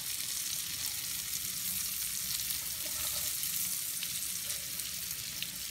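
Breaded chicken of the woods (sulphur shelf) mushroom pieces sizzling steadily as they fry in oil in a skillet on medium to medium-high heat.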